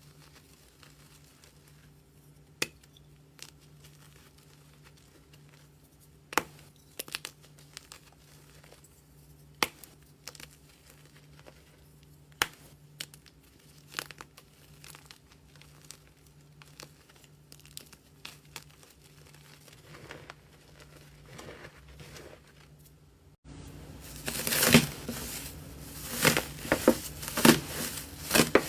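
Hand squeezing and pressing slime: scattered sticky clicks and pops at first, then, about 23 seconds in, a louder, dense run of crackling and squishing.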